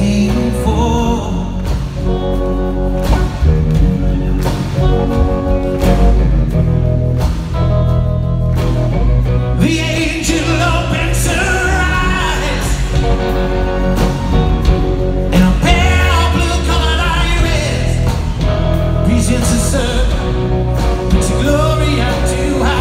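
Rock band playing live through a PA, heard from the audience: a lead vocal over electric guitars, bass and drums, with the singing stronger in the second half.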